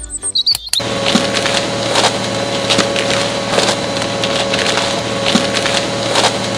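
Miniature DIY concrete mixer switched on: about a second in its small electric motor starts with a steady whine, driving the plastic drum and gearing with a dense clicking rattle.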